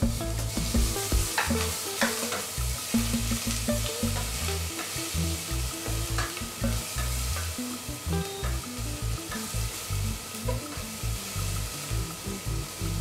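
Ginger-garlic paste sizzling in hot oil in a stainless steel pot, stirred with a plastic spoon that scrapes and knocks against the pot a few times.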